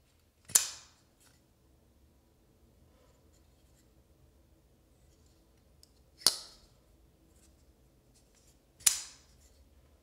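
Kizer Sparrow folding knife's blade snapping into place three times, each a sharp metallic snap with a short ring: about half a second in, just after six seconds and near nine seconds. Faint clicks of handling in between.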